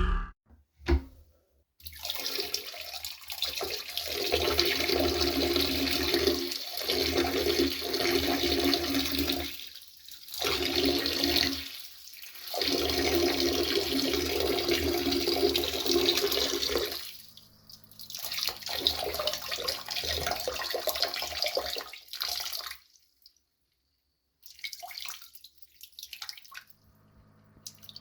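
A person peeing into a toilet bowl, the stream splashing into the water. It breaks off briefly a couple of times, weakens, and stops about three-quarters of the way through, followed by a few last dribbles.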